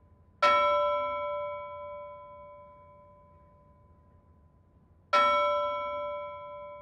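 A bell struck twice, about four and a half seconds apart, each strike ringing out clearly and slowly fading.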